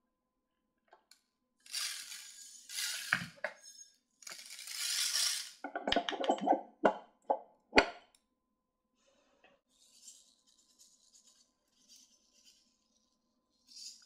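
Small metal pellets pouring and rattling into the model well of a dental thermoforming machine, with a run of sharp clicks and knocks about halfway through. After that come fainter, scattered rattles as more pellets are spread around the plaster model.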